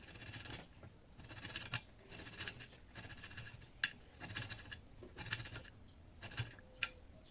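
Kitchen knife chopping onion and ginger on a cutting board: short cutting strokes, about one a second, with a couple of sharper knocks of the blade on the board.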